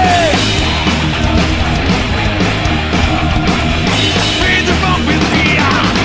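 Live thrash-metal band playing a fast riff, with heavy distorted electric guitars, bass and a driving drum kit.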